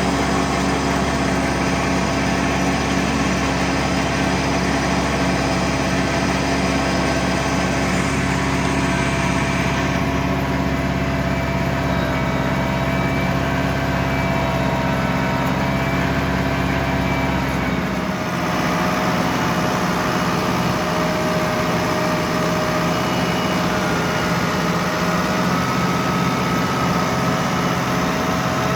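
Ford 6610 tractor's diesel engine running steadily. About two-thirds of the way through its deepest hum drops away while the higher engine tones carry on.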